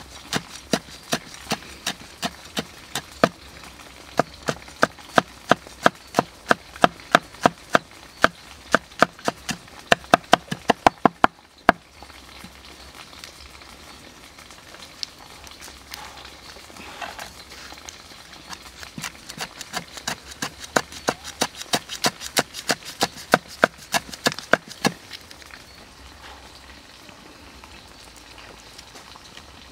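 Cleaver chopping red chillies and garlic on a wooden chopping block: quick, even knocks about three a second. They break off briefly about eleven seconds in, come back faster and louder, and stop about 25 seconds in.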